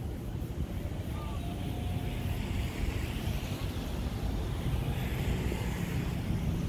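Road traffic: a steady low rumble with tyre noise that swells as a vehicle passes, then eases toward the end.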